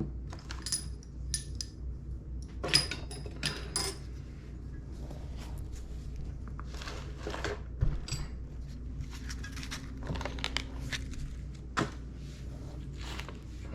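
Loose steel valves and valvetrain parts from a GM 3800 V6 cylinder head clinking and clattering as they are slid out and handled, with a few bright metallic rings in the first four seconds.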